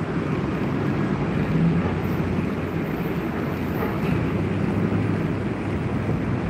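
Steady low rumble of city street traffic, with a faint low hum running under it.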